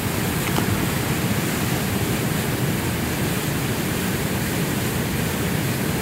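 Waterfall pouring into its plunge pool: a steady rushing of water that doesn't change.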